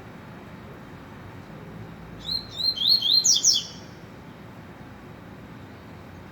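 Double-collared seedeater (coleiro) singing one short phrase of quick rising chirps, a little over two seconds in and lasting about a second and a half.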